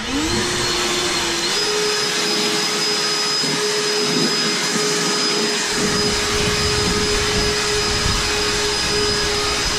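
EGO battery-powered backpack leaf blower running, blowing grass clippings off a concrete walk. Its motor climbs in pitch at the start and steps up to a higher speed about a second and a half in. It then holds a steady whine over the rush of air.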